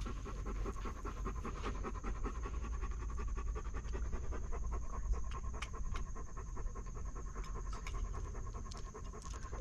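A dog panting rapidly and steadily, over a steady low rumble.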